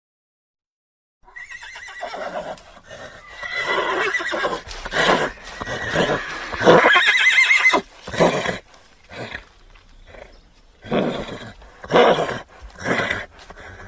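A horse neighing: one long whinny with a wavering pitch that starts about a second in and lasts some six seconds. It is followed by a series of short sounds, about one a second.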